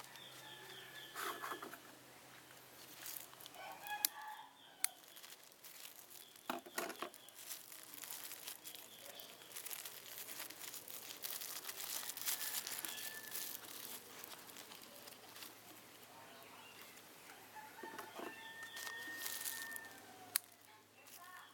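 Clear plastic grafting tape crinkling and rustling as it is wrapped and tied around a graft union, while a rooster crows faintly a few times, the last crow drawn out near the end.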